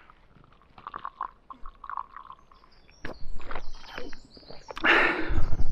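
A person drinking from a water bottle in a few short gulps, then louder rustling and handling noise from about three seconds in.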